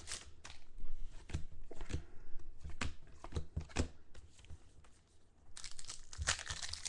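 Foil wrapper of a Contenders football trading-card pack crinkling and tearing as it is opened and the cards are pulled out. It comes as sharp crackles for the first four seconds, goes quieter around five seconds, then crinkles more densely near the end.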